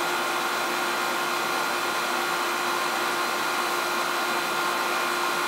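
Oil burner firing a boiler: a steady hum and rush of air from its blower motor and flame, with a few constant tones in it.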